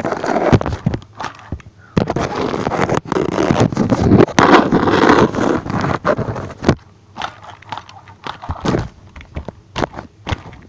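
Handling noise right on the recording phone's microphone: loud scraping, rustling and crackling with scattered clicks and knocks, densest in the middle stretch.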